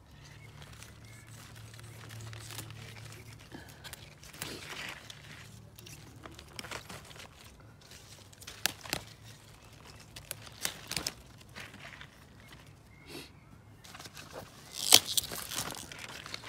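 Broccoli leaves rustling and stems snapping as sprouting-broccoli shoots are picked by hand, in irregular crackles and crunches, the loudest burst near the end.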